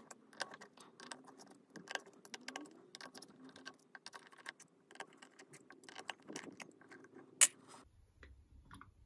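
Small metallic clicks and scrapes of a screwdriver backing out the float bowl screws on a Harley-Davidson Keihin CV carburetor, with the parts handled as the bowl is freed. There is one sharper click about seven seconds in.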